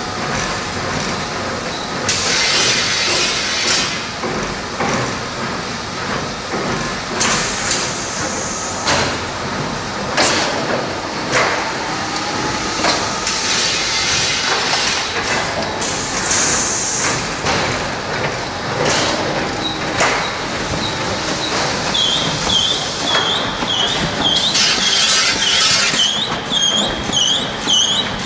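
A Fabio Perini toilet-roll converting line running: steady machine noise with irregular clatter and knocks, and several short bursts of hiss. From about three-quarters of the way in, a high squeak repeats about three times a second.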